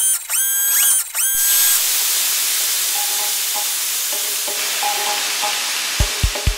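Logo-intro sound effects: a few rising electronic tones in the first second and a half, then a long hiss that slowly fades under faint synth notes. A music track's kick drum comes in near the end with three beats.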